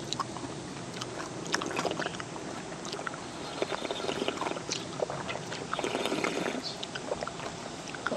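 Makgeolli being drunk from a glass: soft sloshing and swallowing, with scattered small clicks of glass and handling.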